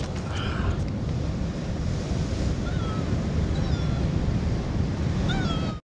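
Sea surf and wind buffeting the microphone, a steady rushing noise heaviest in the low end. A few short, faint chirps come over it in the second half, and the sound cuts off abruptly just before the end.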